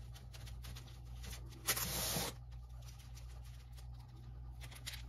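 Serrated bread knife sawing horizontally through a chocolate sponge cake: soft, repeated rasping strokes, with one louder hiss about two seconds in.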